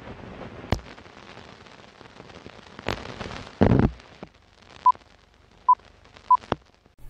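Film-leader countdown effect: a crackling hiss with scattered pops and a brief louder rush, then three short beeps of the same pitch, each under a second apart, as the countdown numbers run.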